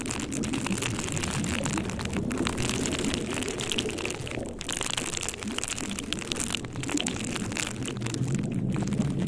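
Steady rain: an even hiss with many small drop ticks running through it.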